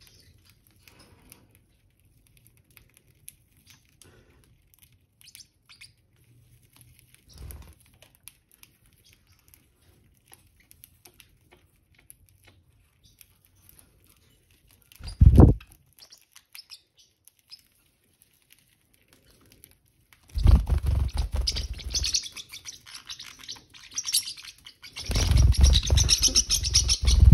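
Baby parrotlets: faint chirps and pecking clicks, one short bump about halfway, then two longer bursts of wing flapping and scuffling in the last third.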